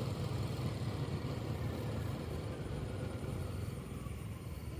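A vehicle engine running with a low, steady rumble that eases off slightly near the end.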